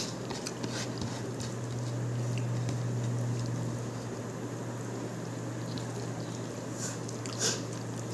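Fingers mixing and squishing rice and chicken curry on a plate, making soft wet crackles and small clicks, with a few sharper ticks near the end. A steady low hum runs underneath.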